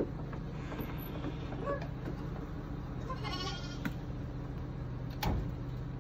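A lamb bleats once, a wavering call about three seconds in, over a steady low hum. A sharp thump comes near the end.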